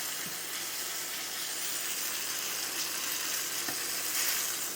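Flour-and-egg-dredged chicken breasts frying in hot oil in a skillet, a steady sizzle.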